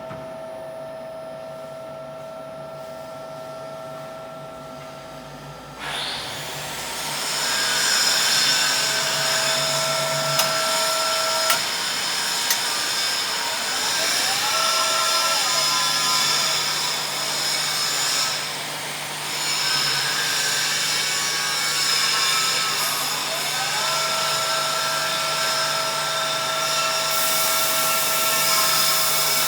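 Workshop machinery running. A steady electric hum and whine is heard at first, then about six seconds in a loud, steady hissing noise starts and carries on.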